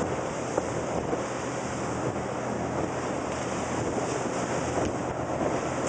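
Wind buffeting the microphone and water rushing past the hull of a Sea Ray 185 runabout running just on plane through choppy water, with a steady engine drone underneath. A couple of short knocks, the first about half a second in.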